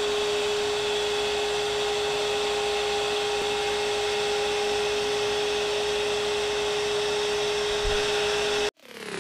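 CNC router spindle running at a constant speed: a steady high whine over an even hiss, cutting off suddenly near the end.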